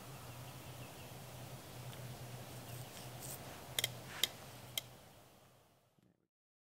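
Hasselblad X1D-50c's leaf shutter clicking through a 0.4-second exposure: two crisp clicks about half a second apart, then one more click, over a faint steady low hum. The sound fades out about a second before the end.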